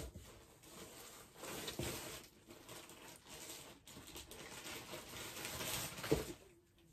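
Plastic clothing packaging rustling and crinkling as it is handled and dug through in a shipping box, with a sharper knock about six seconds in.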